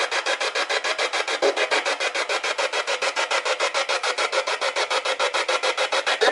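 Spirit box, a radio that scans rapidly through stations, sweeping and chopping static and broadcast fragments into fast, even bursts, about ten a second.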